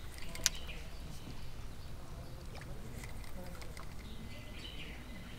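Birds calling from the surrounding trees, with a single sharp click about half a second in over a low, steady background rumble.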